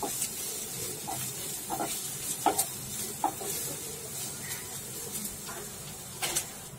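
Sliced onions and green chillies sizzling in a nonstick frying pan while a spatula stirs them, with several short scrapes of the spatula against the pan, most of them in the first half.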